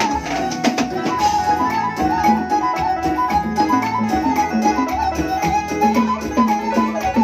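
Arranger keyboard playing Batak Toba gondang music: a fast, ornamented high melody over a steady pattern of short pitched drum-like notes.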